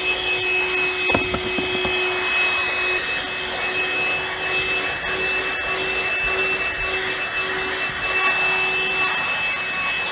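Battery-powered handheld vacuum running steadily with a high whine as its nozzle works over a fabric car seat. A single knock about a second in.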